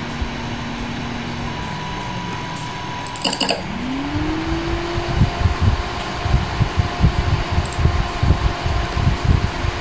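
Small square DC cooling fan under Arduino speed control: its hum sags and fades about two seconds in, then after a sharp click it spins up, the whine rising quickly and levelling off at a higher pitch as the fan is switched to a faster speed with the CPU temperature climbing. Uneven low thumps follow through the rest.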